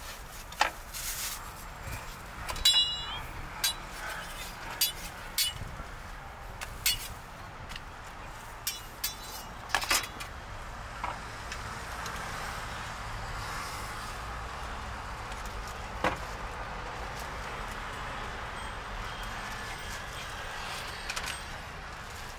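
Scattered knocks and clicks, with one ringing metal clink a few seconds in, over outdoor street noise. From about halfway on, a steady hum of passing traffic.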